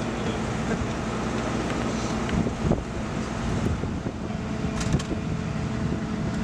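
Engine of a parked armoured military truck idling steadily, with a few sharp clicks and knocks over it.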